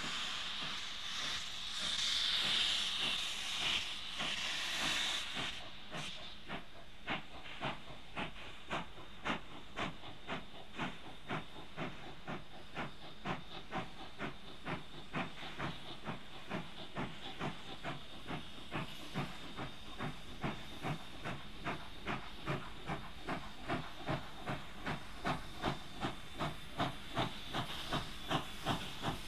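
NSWGR 59 class 2-8-2 steam locomotive 5917 getting under way with steam blowing from its open cylinder drain cocks: a loud hiss of steam for the first five seconds or so, then steady exhaust chuffs about two a second. The chuffs grow louder near the end as the engine draws closer.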